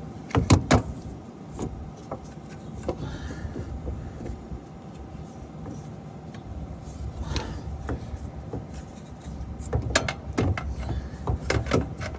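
Sharp metal knocks and clicks as the replacement starter is worked into a tight space under the car, a pair about half a second in and a cluster near the end, over a steady low rumble.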